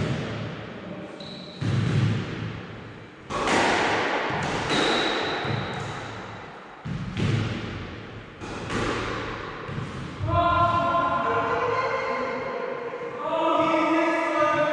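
Squash ball struck several times a second or two apart, each hit a sharp crack with a smear of echo after it. About ten seconds in, choral singing begins.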